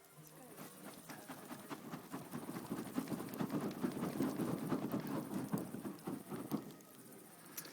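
Hand-held uchiwa paper fan flapped rapidly at a campfire that has not yet caught, to fan it into flame: a fast, even patter of strokes that builds up over the first few seconds, is loudest in the middle, and stops shortly before the end.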